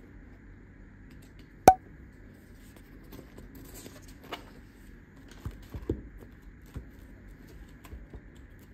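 Pages of a spiral-bound planner being turned and handled on a desk: soft paper rustling with a few light taps, and one sharp click about two seconds in.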